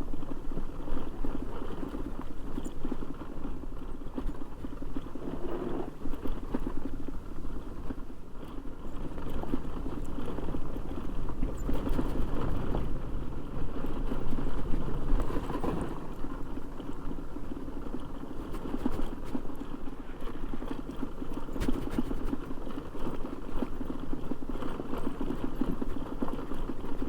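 Motorcycle engine running steadily as the bike is ridden along a rough dirt track.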